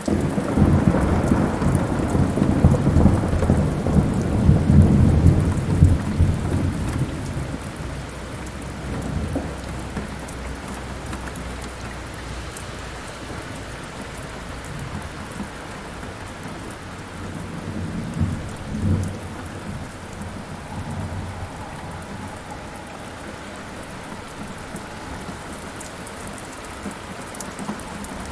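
Thunderstorm: steady heavy rain with a long, loud roll of thunder at the start that dies away over about seven seconds, and a shorter, fainter rumble of thunder about two thirds of the way through.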